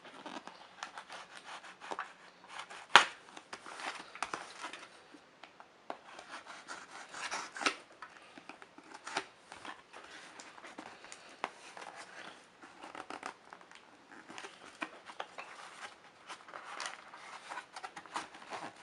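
Knife cutting packing tape on a cardboard box and the box being worked open: irregular scraping, rubbing and rustling with sharp clicks, the loudest a snap about three seconds in.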